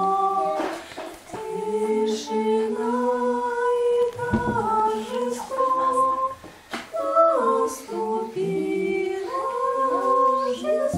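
A woman singing a song unaccompanied, in held, gliding phrases with short breaths between them.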